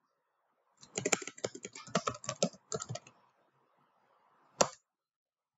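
Typing on a computer keyboard: a quick run of keystrokes lasting about two seconds, then a single louder click near the end.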